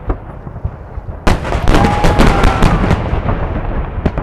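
Fireworks salute: low booms and rumble, then about a second in a dense volley of sharp crackling bursts.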